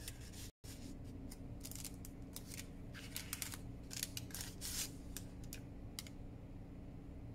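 Paper rustling and sliding as small paper cards are handled and pulled out of a mini envelope made from a parchment baking cup: a run of short crinkles and rubs, busiest between about one and five seconds in.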